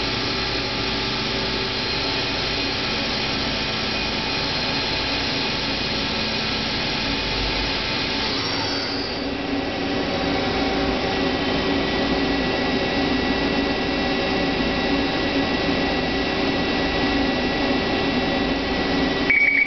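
Hyundai HiT-30M CNC lathe running with its spindle and chuck turning, a steady machine hum with several held whining tones. About nine seconds in the tone changes as the spindle speed changes, and a short beep sounds near the end.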